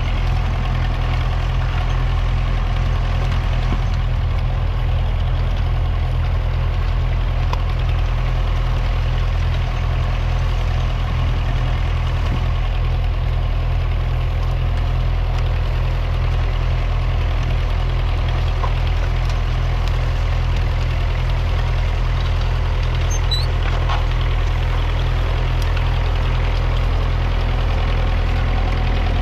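A Massey Ferguson 35's 2.3-litre four-cylinder diesel engine running at a steady, even speed.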